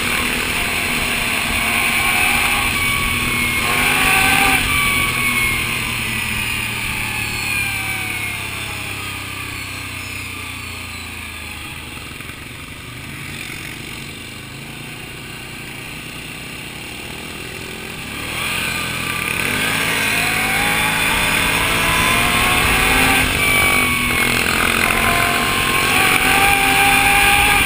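Can-Am ATV engine running under way on a dirt trail, its pitch rising and falling as the throttle is worked. It drops to a lower, quieter run through the middle and revs back up about two-thirds of the way in.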